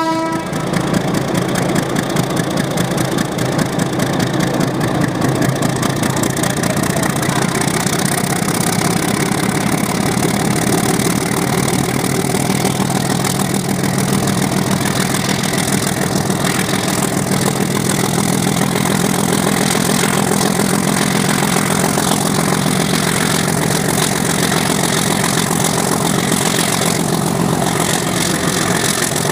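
Diesel engine of KTMB 6428 running loud and steady, a continuous low drone with no change in pace.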